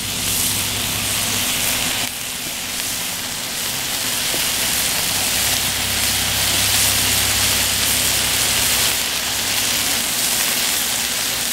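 Beef burger patties sizzling on a hot Cuisinart 360 griddle, a steady frying hiss.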